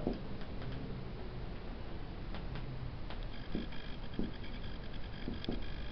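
Marker pen writing on a whiteboard: faint scratching with a scattering of light ticks and taps as the strokes are made, over a steady low hum.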